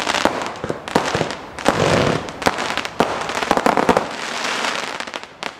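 Black Panther 'Beach Bangers' 296-shot firework cake firing shot after shot, sharp bangs several times a second over a crackling hiss from the bursting stars, thinning out near the end.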